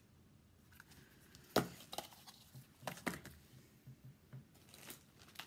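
Light knocks and clicks of craft supplies handled on a tabletop: ribbon spools set down and the next items rummaged for. The sharpest knock comes about one and a half seconds in, with a few smaller clicks after it.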